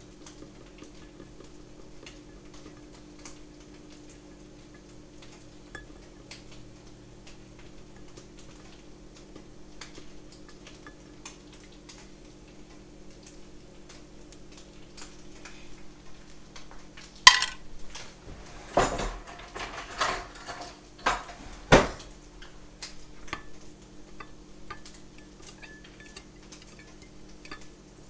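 A metal spoon stirring coffee in a small glass cup, ticking lightly against the glass. About two-thirds of the way through comes a run of five or six louder, sharp clinks.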